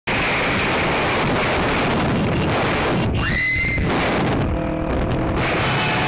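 Steady rush of wind on the microphone of a motorcycle riding at speed, with road and vehicle noise. About three seconds in, a short tone rises and then holds. From about four and a half seconds, several held pitched tones sound together over the rush.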